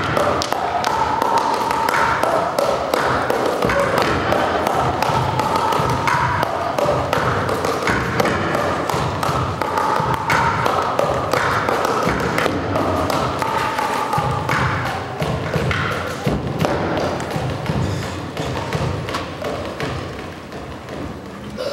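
A percussion ensemble drumming on black plastic barrels and white plastic buckets: a fast, steady beat of thuds and taps, with a pitched ringing note recurring every couple of seconds. It gets a little quieter over the last few seconds.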